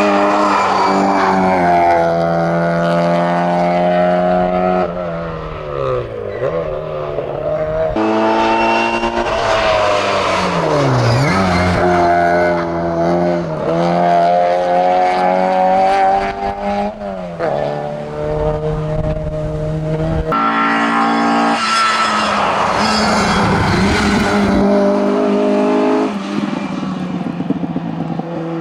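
Classic Mini 1275's four-cylinder A-series engine revving hard through the gears, its pitch climbing and falling back at each upshift. About twenty seconds in it gives way to a Seat 124 revving hard and shifting up the same way.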